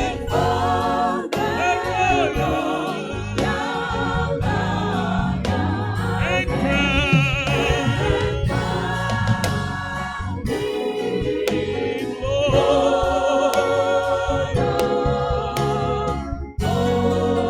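Choir singing a gospel hymn with instrumental accompaniment.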